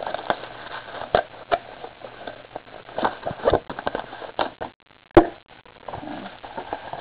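Irregular crackling, rustling and light clicks of a cardboard trading-card box being handled, then a single sharp knock about five seconds in as the box is set down on the wooden desk.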